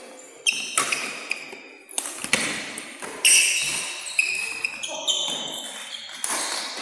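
Badminton rally: rackets striking the shuttlecock with sharp hits roughly every second, and shoes squeaking short and high on the court floor as the players move.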